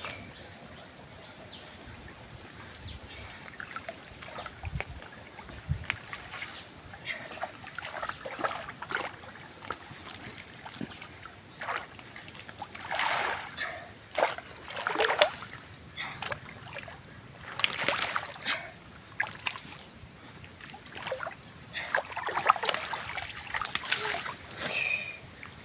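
Water splashing and sloshing in irregular bursts over a steady wash of water, with louder clusters of splashes around the middle and again near the end.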